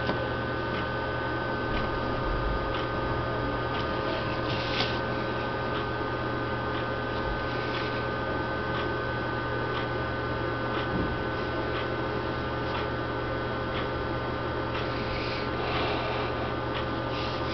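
Steady electrical hum with recording hiss, with a few brief, faint scratches of a pencil drawn along a plastic ruler on paper.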